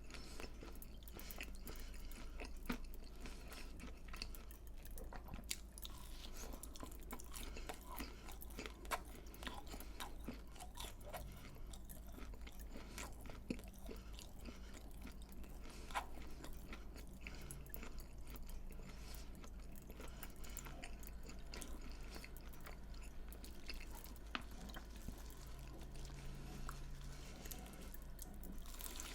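Close-miked chewing of crunchy fried food, with many small crisp crackles and occasional sharper crunches of biting.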